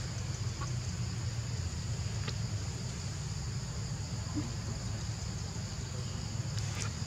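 Steady high-pitched drone of forest insects, with a constant low rumble underneath and a few faint clicks.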